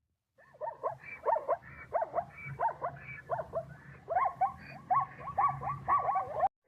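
Zebra calling: a long run of short, bark-like yelps, about three a second. The calls start after a brief silence and cut off suddenly just before the end.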